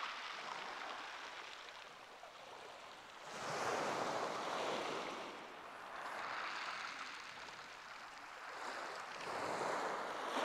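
Waves breaking and washing up a shingle beach, the surf noise swelling and fading about every three seconds.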